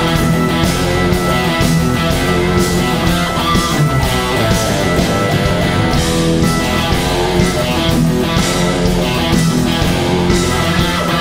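Live progressive rock band playing an instrumental passage: keyboards, bass guitar and drums over a steady beat.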